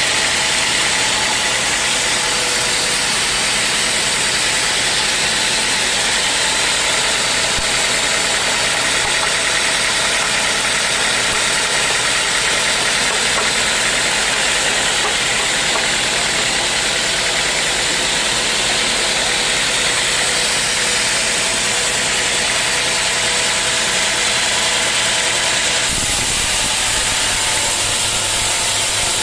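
Sawmill machinery running steadily, an engine-driven mill with a dense mechanical drone and several steady tones; the sound changes suddenly about 26 seconds in.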